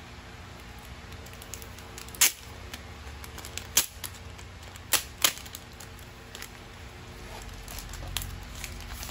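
Clear plastic sleeve being opened and handled: four sharp crackles of the film and its adhesive flap, the first about two seconds in and the loudest, with faint rustling of plastic and paper between them.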